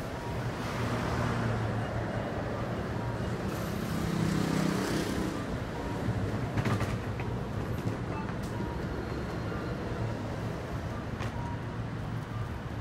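Road traffic and vehicle engines running, a steady low rumble that swells about four seconds in, with a few short clicks near seven seconds.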